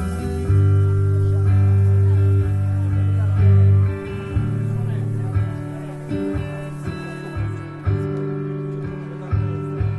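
Amplified electric guitar played solo: slow chords strummed and left to ring, each new one about a second after the last at first, the loudest about three and a half seconds in, then softer, sparser strums.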